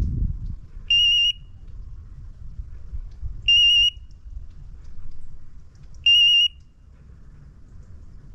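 A hunting dog's electronic beeper collar beeping: three short, high, identical beeps, evenly spaced about two and a half seconds apart. A low rumble runs underneath, with a brief dull thump at the very start.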